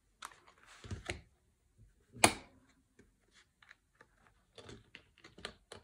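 Hands handling a ring-punched paper planner insert on a table: scattered small clicks, taps and a brief rustle, with one sharp, louder click a little over two seconds in and a quick run of small ticks near the end.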